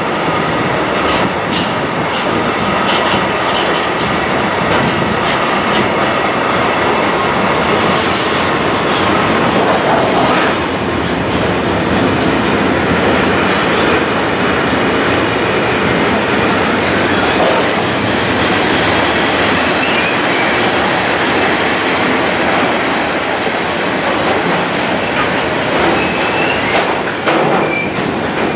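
Container flat wagons of a freight train rolling steadily past close by: continuous wheel-on-rail noise, with scattered clicks of wheels over rail joints and a few brief high wheel squeals.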